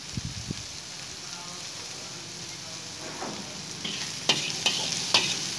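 Chicken, onion and garlic sizzling steadily in a wok. From about four seconds in, a metal spatula stirs and scrapes against the wok in several sharp strikes.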